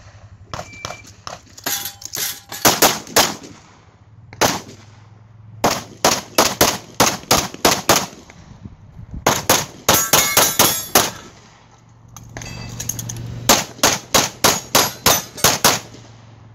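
Pistol shots fired in several rapid strings with short pauses between, some hits ringing on steel targets with a metallic clang.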